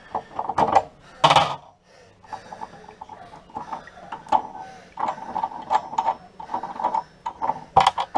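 Hands taking apart a chrome kitchen tap: a run of short metallic clicks, knocks and scrapes, the loudest knock about a second in.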